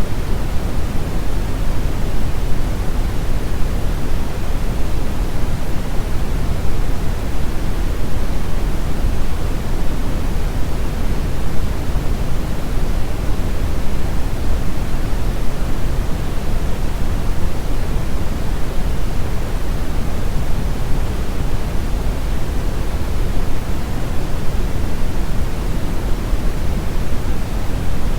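Steady pink noise: a loud, even, unchanging hiss, fuller in the low end than at the top.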